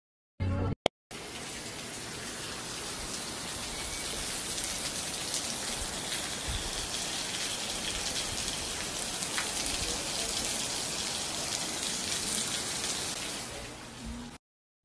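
Hailstorm: hail pelting down on surfaces in a steady, loud hiss. It starts about a second in and fades out near the end.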